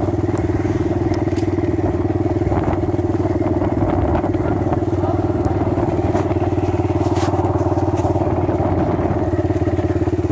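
Motorcycle engine running at a steady speed while riding, heard from on the bike.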